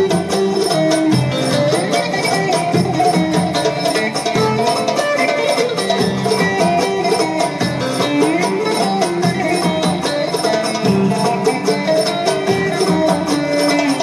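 Turkish folk tune played instrumentally on a bowl-backed lute, quick even plucking carrying a running melody.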